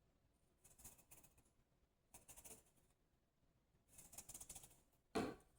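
Near silence with a few faint, brief rustles and a single soft knock near the end.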